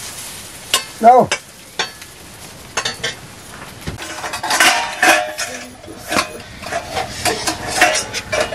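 Metal ladle stirring and scraping in a pan, then stainless steel plates and bowls clinking and clattering together as they are lifted out of a bamboo basket. A short voice-like call about a second in.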